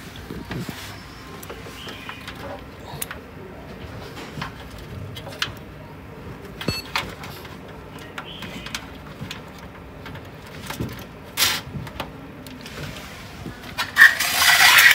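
Handling noise: scattered light clicks and knocks over a low background, with a longer, louder rustle near the end.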